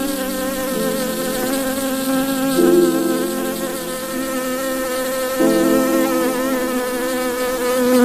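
Paper wasps buzzing: a steady, wavering drone of several pitches at once, the lower ones shifting a few times.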